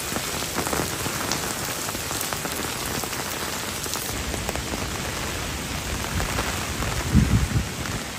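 Heavy typhoon rain pouring steadily on wet streets, with low gusts of wind rumbling on the microphone about seven seconds in.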